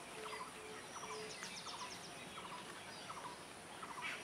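Birds calling outdoors: a short call of three or four quick notes repeated roughly every two-thirds of a second, with a brief high trill about one and a half seconds in, over a steady faint hiss.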